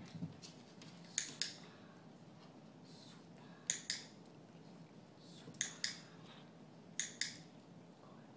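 Dog-training clicker pressed and released four times, each time a sharp double click, every couple of seconds. The clicks mark the dog's behaviour for a treat.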